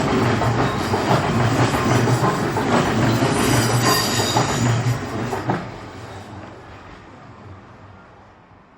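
Odakyu Odawara Line electric train passing over a level crossing, its wheels running over the rails. The sound is loud until about five and a half seconds in, then fades away as the train moves off.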